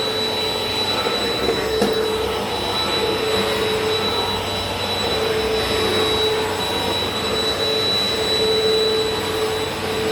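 WAP Power Speed 2-in-1 upright vacuum cleaner (2000 W) running steadily while vacuuming the floor: a constant hum of rushing air with a high motor whine. There is a single brief click about two seconds in.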